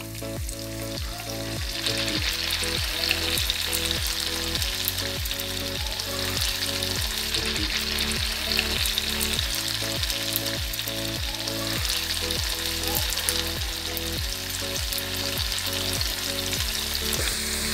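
Batch of flour-coated macaroni deep-frying in hot vegetable oil, sizzling and crackling steadily and getting louder about two seconds in; the heavy bubbling marks freshly added pieces giving off their moisture. Background music with a steady beat plays underneath.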